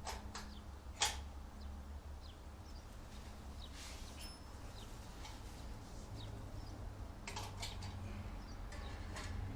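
Scattered metallic clicks and knocks from hand work on a motorcycle's slip-on exhaust mufflers and their brackets. The sharpest knock comes about a second in and a quick cluster comes near the end, over a steady low hum.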